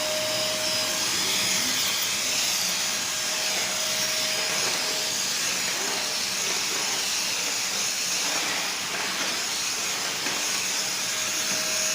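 Hitachi vacuum cleaner switched on for a test run, its motor running at full speed: a steady whine over a dense rush of air.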